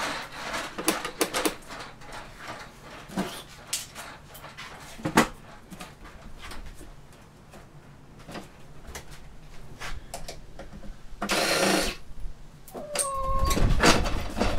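Sony projector's plastic housing being pried and handled during a teardown: scattered clicks and knocks, a brief scraping rush about three-quarters of the way through, and a short falling squeak near the end.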